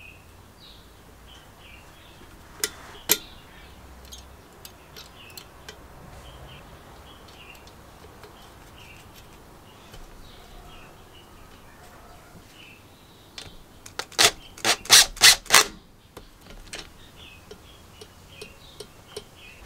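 Light metallic clicks and taps of a hand tool and a steel control lever being fitted and its nut tightened on a small engine's linkage. There are two sharp clicks early on and a quick run of about six louder clicks about two-thirds of the way through. Birds chirp faintly in the background.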